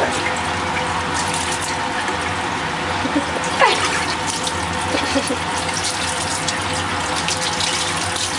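Water running from a rubber hose into a deep sink and splashing over a cat carcass as it is rinsed and turned by hand. About three and a half seconds in there is a brief sound that drops in pitch.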